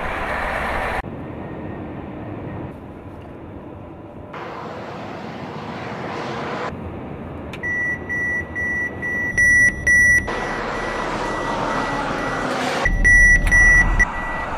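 Truck running noise in several short cut-together clips, then about halfway in a high-pitched electronic warning beep starts, pulsing about twice a second, with a louder run of beeps near the end: the collision warning of a Mercedes-Benz Actros's Active Brake Assist.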